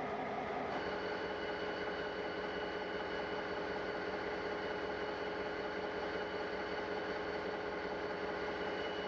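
Steady hiss with several constant humming tones. A pair of higher, whining tones joins about a second in and holds.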